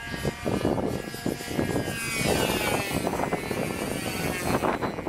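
Radio-controlled model airliner making a low pass overhead. Its motor drone grows louder, then its pitch falls as it goes by and away.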